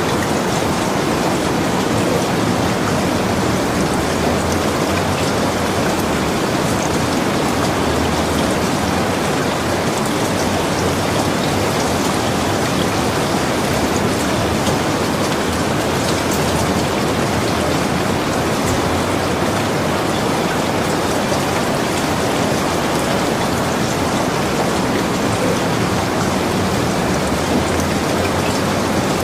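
Steady rainfall: an even hiss of rain with faint scattered drop ticks, unchanging in level throughout.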